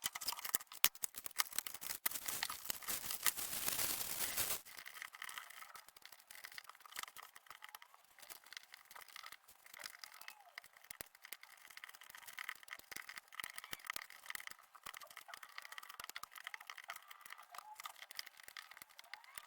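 Cardboard jigsaw puzzle pieces being handled: quick clicks and light rattling. A denser rustling rattle fills the first four and a half seconds and stops suddenly.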